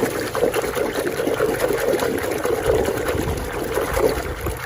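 Water running and trickling as a muddy toy is rinsed clean.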